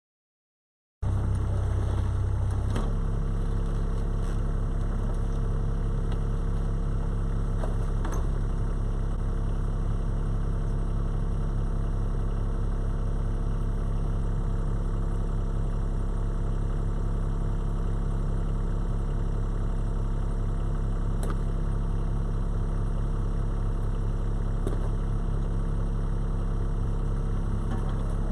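Skid steer loader's engine running steadily at a constant speed. It cuts in abruptly about a second in.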